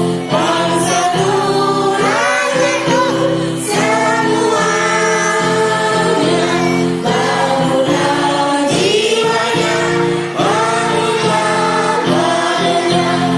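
Kindergarten children's choir singing a song together, with sustained low accompaniment notes running under the voices.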